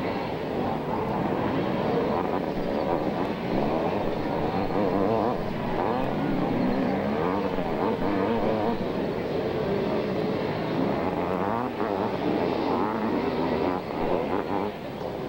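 Several 500cc two-stroke motocross bikes racing. Their engines rise and fall in pitch continuously as the riders work the throttle through the track.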